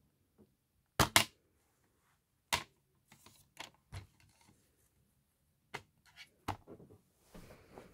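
Plastic DVD case clicking and snapping as it is handled and opened. There is a sharp double click about a second in, another about a second and a half later, then lighter clicks and rattles.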